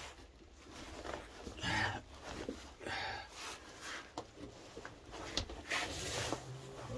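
A caver breathing hard as he crawls through a cramped limestone cave passage: a few noisy breaths, about four, with small scrapes of body and clothing against rock.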